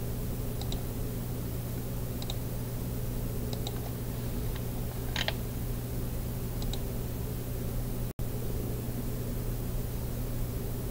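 A steady low electrical hum and hiss, with faint computer mouse clicks every second or two as sketch lines are placed; each click is a quick double tick. The sound cuts out for an instant about eight seconds in.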